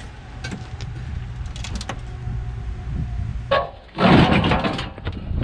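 Metal hand truck being shifted across the ground: a few light knocks, then a sharp knock about three and a half seconds in and a loud scraping drag lasting under a second.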